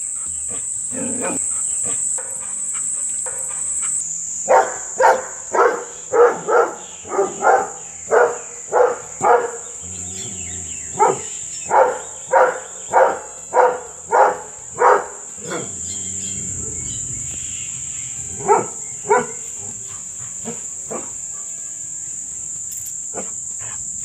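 Doberman Pinscher barking aggressively: a run of loud barks about two a second, broken by a brief pause, then two more barks a few seconds later. A steady high insect drone runs underneath.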